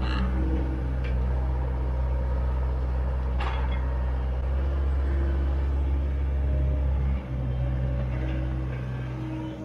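John Deere 85G excavator's diesel engine running steadily, with a single sharp metallic clank about three and a half seconds in.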